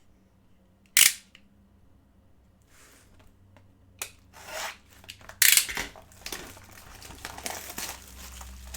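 Handling noises on a tabletop: a sharp knock about a second in, another knock and some scraping strokes a few seconds later, then steady rustling and crinkling of plastic or paper.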